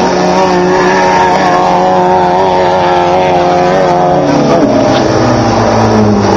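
Off-road race car engine running loudly at a steady pitch, then its pitch falls about four seconds in and settles lower.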